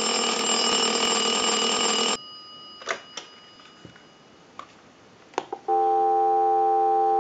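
A telephone's mechanical ringer bell rings once for about two seconds on a ring cycle sent from a line analyzer. A few clicks and clunks follow as the handset is lifted off the hook, and a little over halfway through a steady telephone dial tone comes on and holds.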